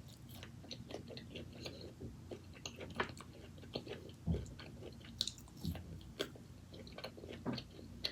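Close-miked chewing: many small irregular wet mouth clicks, with a few soft low knocks.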